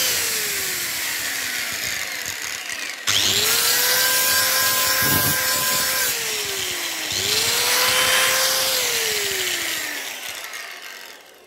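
Angle grinder grinding rust off steel. The motor winds down, is switched on again about three seconds in and about seven seconds in, each time whining up to speed and grinding with a hiss, and spins down near the end.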